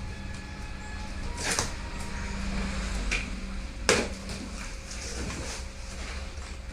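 Unboxing sounds from a cardboard book shipment being handled: a scrape about a second and a half in, a light click, then a sharp knock just before four seconds, the loudest moment, over a steady low hum.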